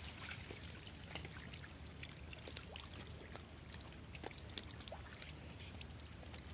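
Faint trickling water in a shallow, draining fish pond, with scattered small ticks and splashes over a low steady hum.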